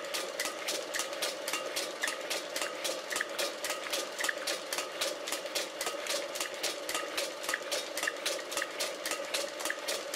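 Pillar drill running a milling cutter as a makeshift milling machine, cutting into a metal throttle-lever housing blank as the cross-slide table is fed by hand. A steady machine hum with a fast, even ticking of the cut, about five a second.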